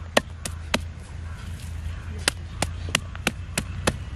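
Knife chopping beef into mince on a wooden block, in sharp even strokes about three a second, pausing for about a second before starting again. A low steady hum runs underneath.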